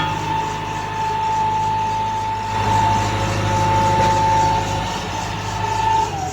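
Hitachi excavator's Isuzu 4HK1 diesel engine running steadily, with a high steady whine over the engine note. Near the end the whine falls in pitch as the engine slows. The engine is running on a temporary fuel feed because dirty tank fuel damaged its injectors.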